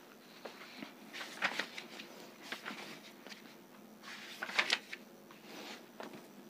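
Pages of a student atlas being turned by hand: faint, irregular paper rustles, loudest about a second and a half in and again around four and a half seconds.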